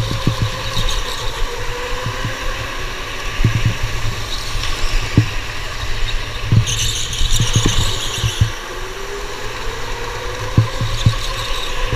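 Indoor electric go-kart heard from its onboard camera: the electric motor's whine rising twice as the kart accelerates, with low knocks and rattles from the chassis over the floor. Tyres squeal through a corner from about six and a half to eight and a half seconds in.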